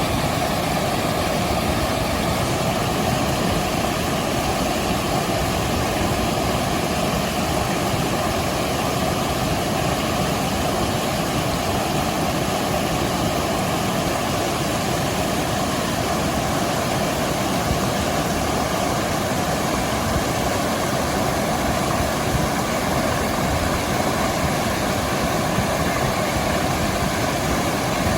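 Upper waterfall stream: water rushing steadily over the top of the falls, an even, unbroken noise with no change in level.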